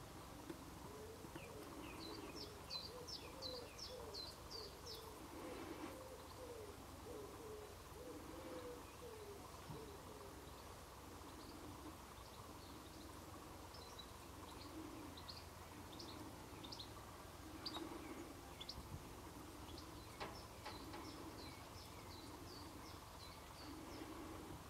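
Faint birdsong: runs of quick, high chirps for a few seconds near the start and again scattered through the second half, over lower calls repeated every second or two throughout.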